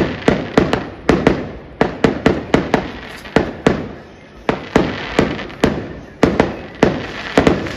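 Fireworks and firecrackers going off in a rapid, irregular string of sharp bangs, about two or three a second, each trailing off in an echo.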